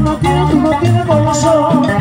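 Live band playing an amplified instrumental Latin dance tune: a wavering melody line over steady bass notes and an even percussion beat.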